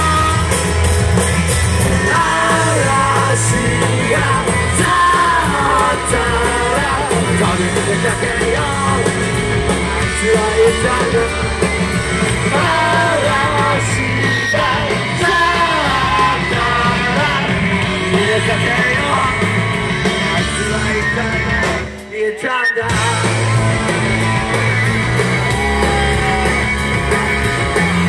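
Live rock band playing loud: electric guitar, bass and drums with singing, heard from within the audience. The music drops out for a split second about three-quarters of the way through, then comes straight back in.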